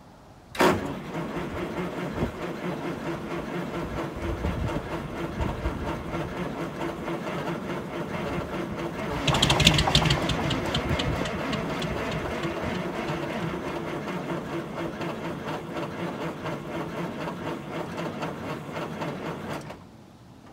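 Cold 8V71 Detroit two-stroke V8 diesel cranking on its starter after a shot of ether, with a steady rapid rhythm. About nine seconds in it fires for a moment and gets louder, blowing white smoke, then goes back to cranking. The cranking stops suddenly near the end without the engine catching.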